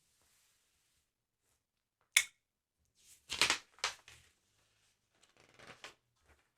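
Paper of a sticker album being handled: a sharp snap about two seconds in, then a burst of crisp rustling and a softer rustle near the end.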